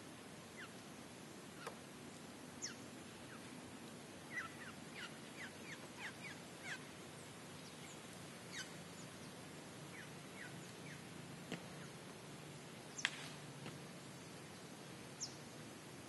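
Scattered short, high bird chirps, each falling quickly in pitch, over a faint steady hiss; they come in a quick run in the middle, and the loudest is near the end.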